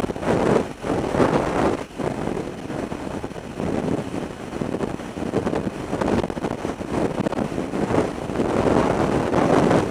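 Freefall wind rushing hard over a camera's microphone, swelling and dipping in uneven gusts.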